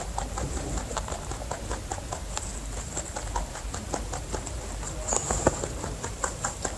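Rabbits making a quick, irregular run of small clicks and taps, over a steady low rumble.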